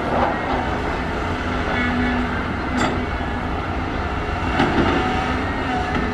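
Volvo crawler excavator's diesel engine running under load with a steady hydraulic whine as the boom and bucket work a high earth wall, broken by a few brief sharp metal clanks: one at the start, one about three seconds in, one near the end.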